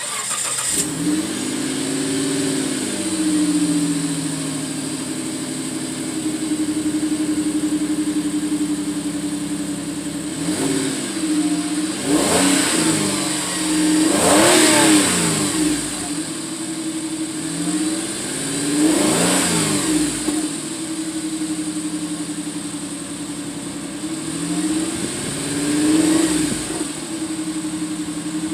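Suzuki Grand Vitara engine and stock exhaust, with no turbo whistle fitted, running at idle and revved about six times, each rev a brief rise and fall in pitch.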